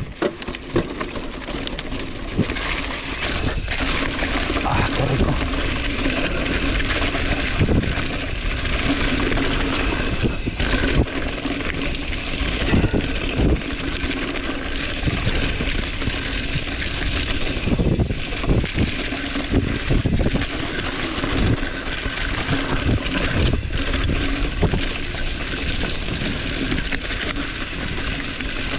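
Mountain bike ridden along a rough dirt cross-country trail: steady rush of wind over the microphone with frequent knocks and rattles as the bike jolts over bumps.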